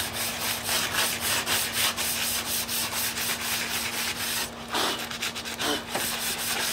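Coarse 60-grit sandpaper rubbed by hand over a sheet-metal computer case panel in brisk back-and-forth strokes, about three to four a second. The sanding breaks off about four and a half seconds in, and a few more strokes follow near the end.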